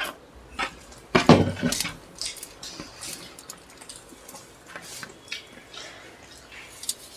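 Cutlery clinking and scraping against dishes during a noodle-eating session: a steady run of small clicks, with a louder clatter about a second in.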